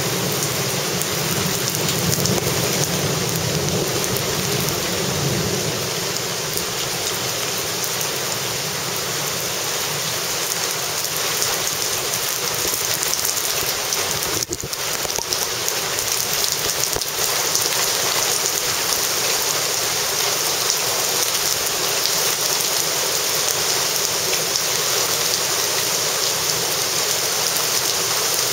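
Torrential wind-driven rain pouring down in a steady, loud hiss, with a low rumble that dies away over the first few seconds.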